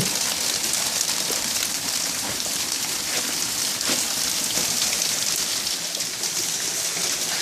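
Hail coming down hard: a dense, steady patter of hailstones striking hard surfaces.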